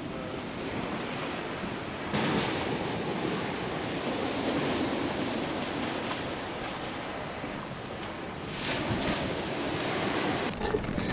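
Ocean surf with wind buffeting the microphone: a steady rushing that gets louder about two seconds in.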